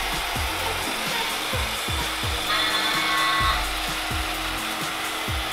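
Hard plastic wheels of a ride-on toy truck rolling on a hardwood floor with a rough, grinding rumble, over background music with a steady beat of about two thumps a second.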